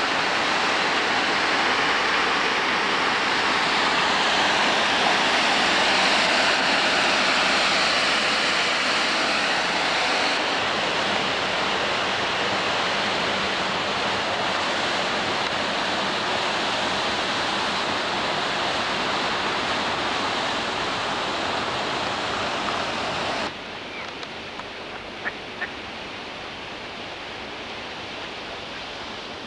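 Steady rush of flowing water, a loud even hiss that cuts off sharply about 23 seconds in, leaving a quieter steady hiss with a couple of faint clicks.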